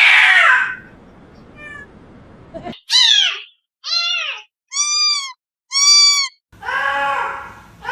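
Cat meowing repeatedly: a run of about seven short, arching meows, some clear and high, with brief silences between them in the middle.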